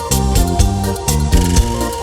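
Instrumental music with a steady beat: sustained bass and chord notes over regular drum hits.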